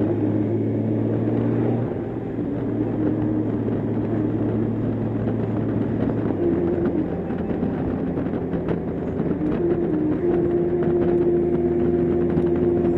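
Honda Gold Wing's flat-six engine droning at a steady cruise, with a continuous hiss of road and wind noise. The engine note shifts about two seconds in and again about six seconds in.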